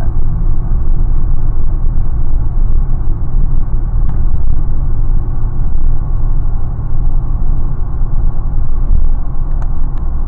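Wind buffeting the microphone: a loud, steady low rumble that flutters unevenly, with a few faint clicks near the end.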